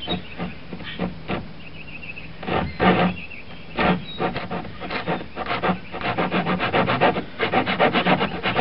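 Hand saw cutting through a piece of oak: a few slow, uneven strokes, then a steady run of quick back-and-forth strokes, about four a second, in the second half.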